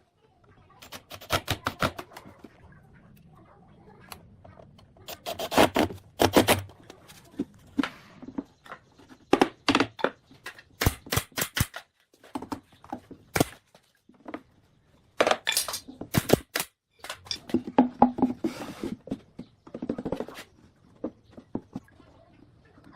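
Repeated sharp knocks and taps in irregular clusters, some quick runs of several strikes, like hard objects or wood being struck.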